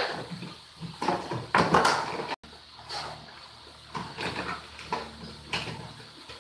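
Plastic food-storage containers and lids clattering and knocking as they are handled and stacked into a low kitchen cabinet, in a string of separate knocks, loudest about two seconds in.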